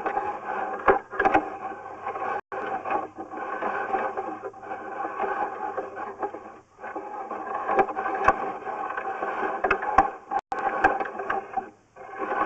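Sewer inspection camera system giving a steady electrical hum with several layered tones, cutting out briefly a few times, with scattered clicks and scrapes as the camera head is pushed through the pipe.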